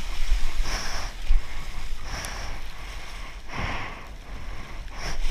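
Whitewater rushing and splashing around a surfboard, rising and falling in surges about every second and a half.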